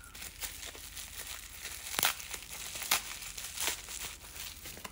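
Packaging wrap crinkling as it is handled and unwrapped, with three sharper, louder crackles partway through.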